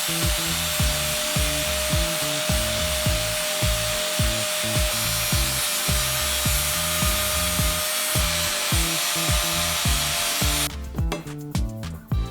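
Angle grinder flattening fresh welds on steel: a steady grinding hiss with an even motor whine, stopping shortly before the end.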